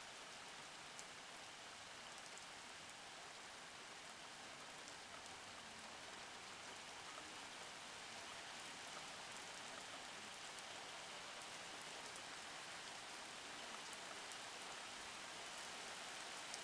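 Light rain falling: a faint steady hiss with scattered tiny drop ticks, slowly growing a little louder.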